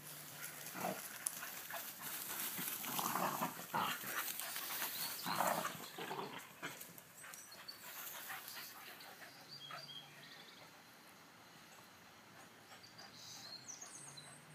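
Two beagles playing chase: three short barks in the first half, over the rustle of their running and panting, after which it goes quieter.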